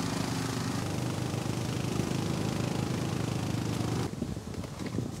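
Engine of a side-by-side utility vehicle running steadily as it drives up a dirt mountain trail, with a rushing noise of the ride over it. About four seconds in, the sound drops suddenly to a quieter rumble with scattered knocks.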